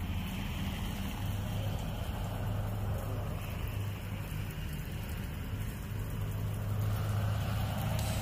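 Steady low rumble with an even background hiss.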